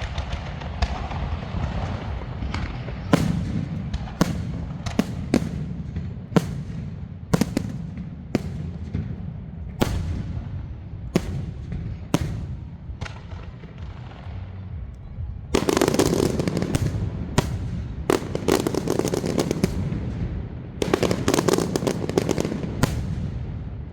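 Fireworks and firecrackers going off: single sharp bangs about once a second over a steady low rumble, broken twice by dense rapid crackling volleys, once about two-thirds of the way in and again near the end.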